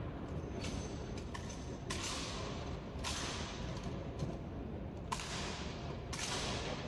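Sharp slaps echoing in a large hall, several spaced about a second apart, with small clicks between them: the rifle drill and heel stamps of an army honor guard.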